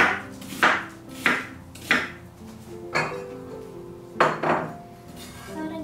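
Kitchen knife chopping an onion on a cutting board: sharp strikes, four evenly spaced about two-thirds of a second apart, then slower ones near the middle and end.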